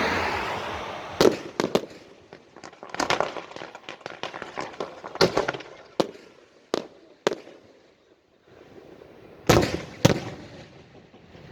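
Fireworks going off: a hissing swell at the start, then about nine sharp, irregularly spaced bangs with crackling between them, the loudest two close together near the end.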